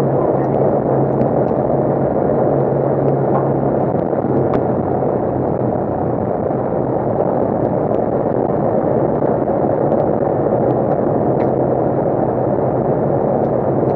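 Side-by-side off-road vehicle running steadily down a gravel road, heard from inside its open cab: a constant rumble of engine and tyres on gravel, with a low engine hum that fades about four seconds in and a few faint ticks of stones.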